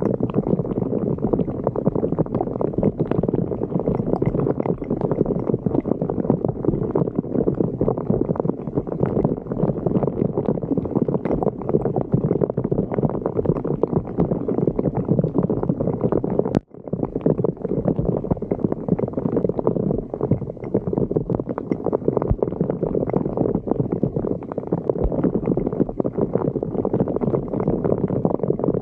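Floodwater gurgling and rushing into a street drain blocked by leaves and debris, a steady churning noise with a brief break about two-thirds of the way through.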